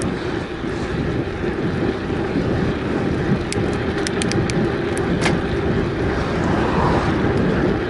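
Mountain bike riding fast on fresh asphalt: a steady rush of wind over the microphone mixed with the hum of the tyres on the road, with a few light ticks around the middle.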